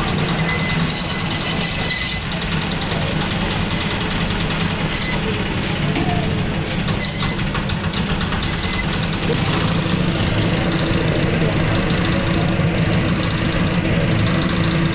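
Electric band saw for cutting fish running with a steady motor hum while fish steaks are sliced through its blade.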